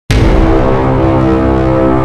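Background music: a low sustained chord that starts abruptly just after a moment of silence and holds steady.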